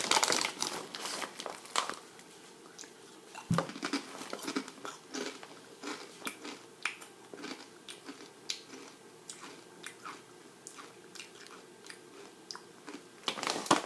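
Someone crunching and chewing kettle-cooked potato chips close to the microphone: irregular sharp crunches, thick in the first couple of seconds and then sparser, with one dull thump a few seconds in.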